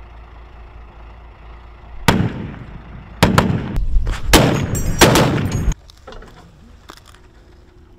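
Gunfire: a single loud shot about two seconds in, then a rapid run of shots with echoing tails for about two and a half seconds, cut off abruptly.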